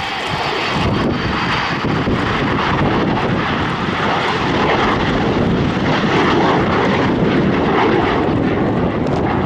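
Avro Vulcan XH558's four Rolls-Royce Olympus jet engines during a low flypast: a loud, steady jet noise that swells slightly after about five seconds.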